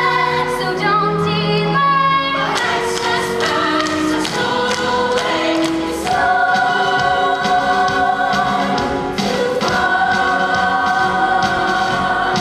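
A chorus of voices singing a musical-theatre number over instrumental accompaniment, holding long sustained chords in the second half.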